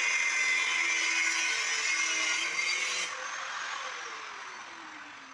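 Cordless angle grinder with a thin resin cut-off wheel cutting through stainless steel bar, a loud gritty grinding hiss. About three seconds in the cut stops abruptly and the motor winds down with a falling whine that fades away.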